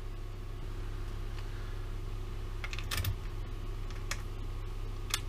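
A few scattered sharp clicks and taps from hands handling a plastic motorcycle dashboard panel and its wiring and bulb holders, mostly in the second half, over a steady low hum.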